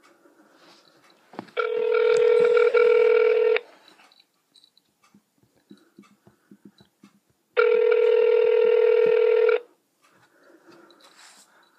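Telephone ringback tone heard over a phone's speaker: two rings about two seconds long, separated by about four seconds, while an outgoing call waits to be answered.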